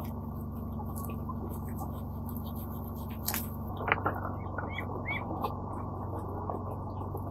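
Knife work with vegetables: a few sharp taps and clicks of a knife, loudest about three and four seconds in, over a steady low hum.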